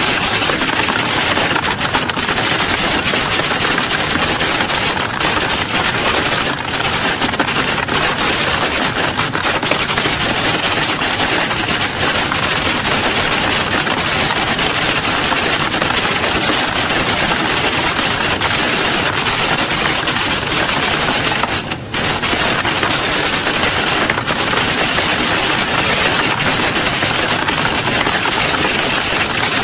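Many people typing on keyboards at once in an exam hall: a dense, unbroken clatter of overlapping keystrokes, with a brief lull about three-quarters of the way through.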